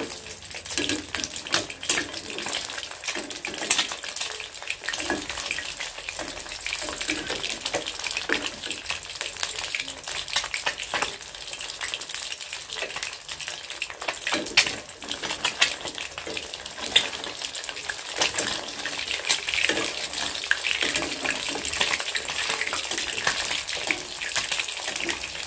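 An egg deep-frying in hot oil in a wok: a steady sizzling crackle of many small pops, with the odd louder pop.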